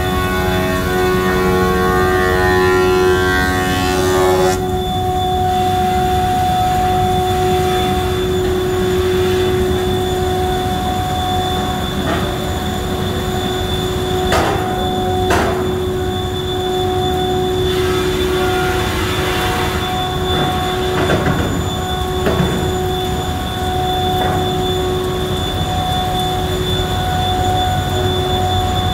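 Industrial wood planer-moulder running with a steady whine. A denser cluster of tones in the first four or five seconds stops abruptly, and a few short swishes come in the middle.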